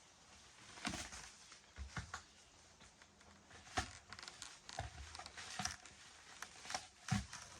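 Unpacking a shipping pallet: a scatter of irregular, fairly faint knocks and scrapes with some tearing and rustling of packing material.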